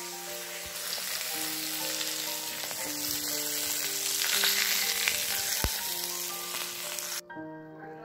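A cut of meat frying in a cast-iron skillet, with steady loud sizzling spitting oil. The sizzle cuts off suddenly about seven seconds in. Background music of slow held notes plays under it.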